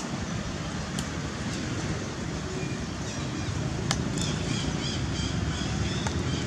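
Steady low outdoor rumble, like distant traffic or wind on the microphone, with a couple of sharp clicks. From about four seconds in there is a run of short, high, evenly repeated chirps.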